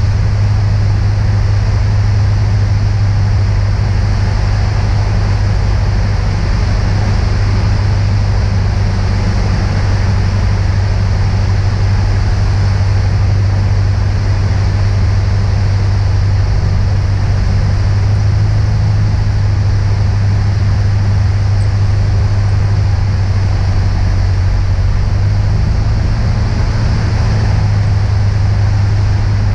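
Beechcraft Musketeer's single piston engine and propeller droning steadily inside the cockpit, with a strong low hum, on final approach to the runway.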